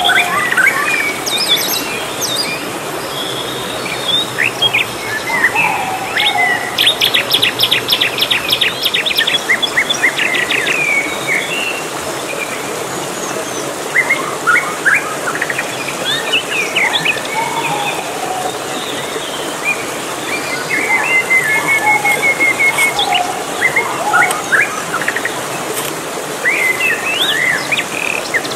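Jungle birds chirping and calling throughout, with a fast trill about seven seconds in lasting some two seconds, over the steady rush of a shallow rocky stream.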